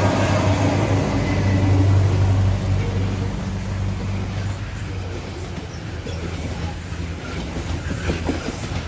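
Coal freight train passing on the rails, a steady low drone that slowly fades, with a few faint clicks of the wheels near the end.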